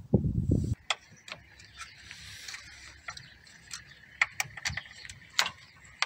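Handling noise at the start, then scattered sharp clicks and taps of a car battery terminal clamp and multimeter leads being fitted onto the battery post.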